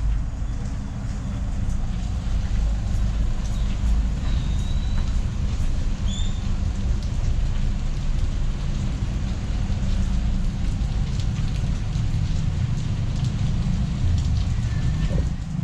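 Street ambience in the rain: rain falling steadily over a low rumble of traffic, with a few brief high chirps about four and six seconds in.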